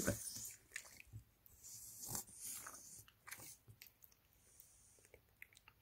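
Faint wet smacking and soft irregular clicks: mouth sounds from a Shar-pei mother and her newborn puppies. The loudest is right at the start.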